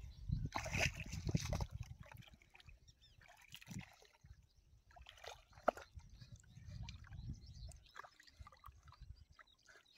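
Shallow muddy water sloshing and squelching as feet wade and dig in soft lake-bed mud, in short irregular splashes, loudest in the first two seconds and faint after.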